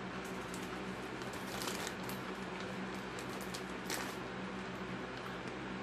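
Scattered crinkles and crackles of a Xtra Hot Cheetos chip bag being handled and reached into, over a steady low hum.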